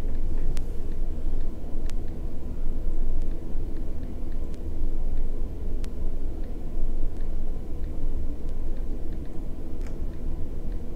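Steady low background rumble, with a few faint sharp clicks scattered through it.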